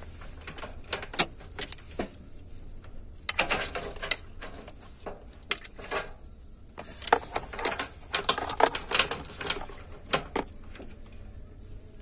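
Clicks and rattles of computer hardware being handled, coming in several clusters of sharp taps and clatters over a faint low hum.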